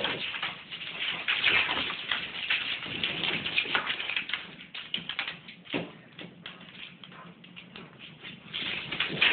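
Labrador retriever growling as he pulls at a tug toy, with scuffling and clicks from the struggle. It is busiest in the first half, eases off for a couple of seconds, then picks up again near the end.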